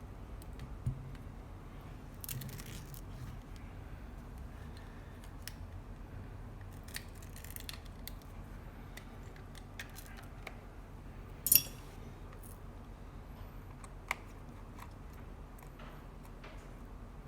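Small tools and parts being handled while taking apart an iPhone X: scattered light clicks and a couple of brief scratchy scrapes, with one sharp click about two-thirds of the way through.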